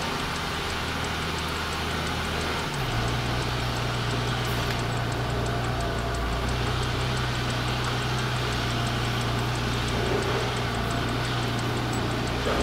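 Semi truck's diesel engine heard from inside the cab, running steadily at low speed. About three seconds in, the engine note steps down slightly in pitch and grows a little louder.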